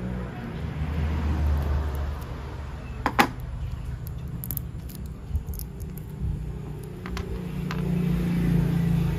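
Battery-powered toy train running: a steady low motor hum with a few sharp plastic clicks, a double click about three seconds in and a few more near the end.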